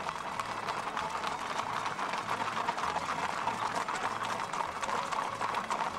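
A large herd of horses moving along a paved road: a dense, steady clatter of many hooves.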